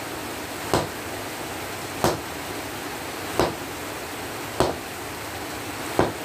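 Sledgehammer striking red-hot steel from an excavator rock-breaker chisel on an anvil during hand forging: five sharp blows, about one every 1.3 seconds, over a steady hiss.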